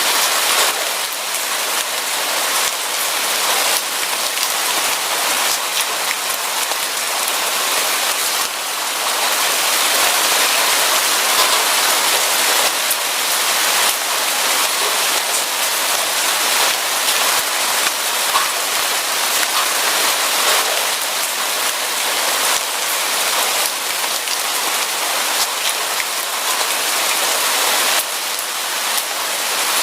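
Steady rain falling, a dense, even hiss of drops on surfaces with no thunder.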